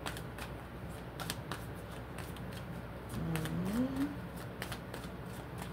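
Tarot cards being shuffled and handled: a run of light, irregular card clicks and flicks. A short rising hum comes about three seconds in.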